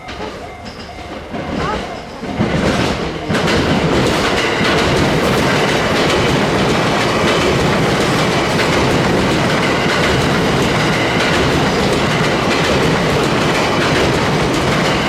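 Level-crossing warning bell ringing, then an E353-series limited express electric train passing over the crossing. The train noise builds about two seconds in and is loud from about three seconds on.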